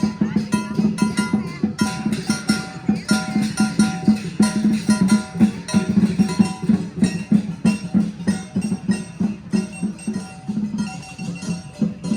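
Lion dance music: a drum beaten in fast, steady strokes, with short higher notes stepping through a tune over it.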